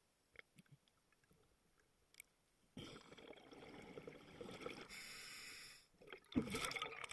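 Scuba diver breathing through a regulator underwater: a few faint clicks, then exhaled bubbles from about three seconds in, a steady hiss of an inhale for about a second, and a louder burst of exhaled bubbles near the end.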